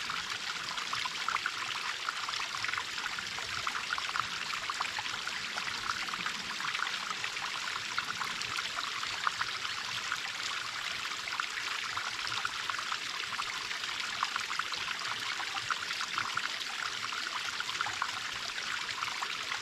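Small waterfall on a mountain stream, water splashing and pouring steadily. It is a bright, even rush made of many small splashes, with little deep rumble.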